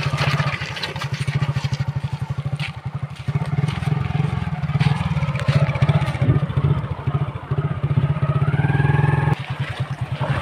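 Single-cylinder four-stroke engine of a Hero Splendor commuter motorcycle running steadily with an even putter as the bike pulls away and rides slowly with two up.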